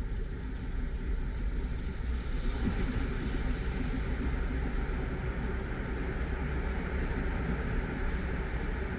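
Steady road noise of a car driving, heard from inside the cabin: a low rumble of tyres and engine, swelling slightly a few seconds in.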